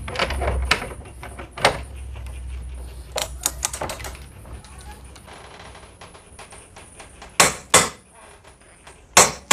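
Steel hand tools being handled: a click-type torque wrench on a long steel extension pipe, tightening a test bolt, gives a quick run of ratchet-like clicks about three seconds in. Scattered metal clicks run through the rest, with three loud knocks near the end.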